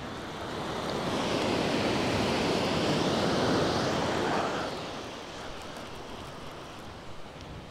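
Surf breaking on a shingle beach. The noise swells about a second in and dies away after about four and a half seconds.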